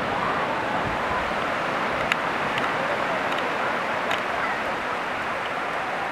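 Steady wash of surf breaking on a sandy beach, with faint distant voices and a few small sharp clicks.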